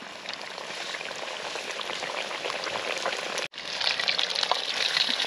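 Beer-battered fish pieces sizzling in a pot of shallow hot oil, a steady crackling fry. It cuts out for an instant about three and a half seconds in, then comes back louder.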